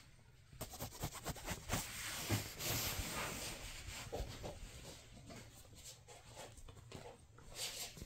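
Scratchy rustling on bedding and a flat strip toy as a kitten paws and scrabbles at it, with many small clicks, loudest in the middle and easing off toward the end.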